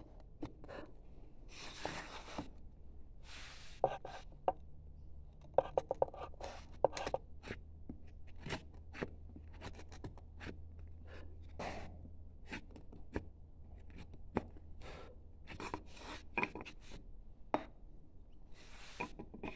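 Hand carving chisel cutting into a wooden panel: a run of short, crisp, irregularly spaced cuts, with a few longer scraping strokes.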